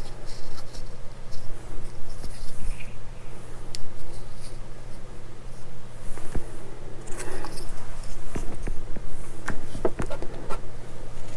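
Small plastic model-kit parts being handled and fitted together by hand, with scattered light clicks and scratchy rubbing, over a steady low hum.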